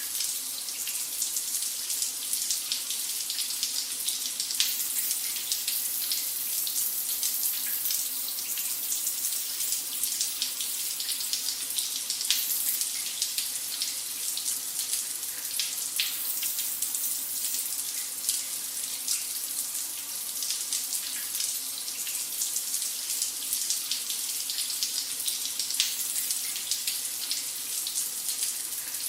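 Shower running steadily: a continuous hiss of spray with many small spatters of water hitting a surface.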